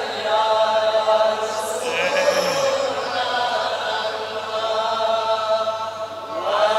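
A male voice chanting a devotional naat in praise of the Prophet Muhammad in Kashmiri, holding long, drawn-out notes; near the end the voice slides up to a new note.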